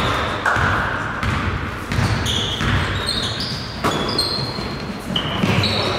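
Basketball bouncing on a gym's hardwood court in irregular thuds, with short high sneaker squeaks in between, echoing in a large hall.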